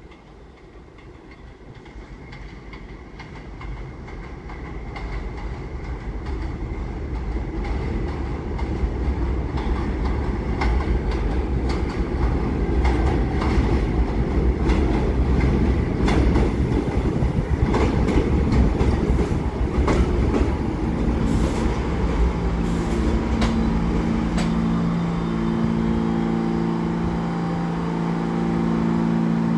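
R46 subway train approaching and pulling into an elevated station. The low rumble grows steadily louder over about ten seconds, with wheels clattering over the rail joints. In the last third it slows and a steady hum of several tones sets in.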